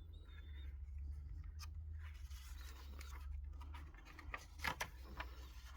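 Paper pages of an 1890 Bible rustling and crinkling as they are handled and turned, with a few sharper crinkles about four and a half seconds in, over a faint steady low hum.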